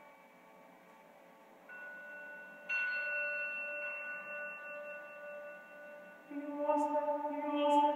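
Early-music ensemble playing quiet, sustained instrumental tones, with new notes entering about two and three seconds in. Voices join near the end as the singing begins.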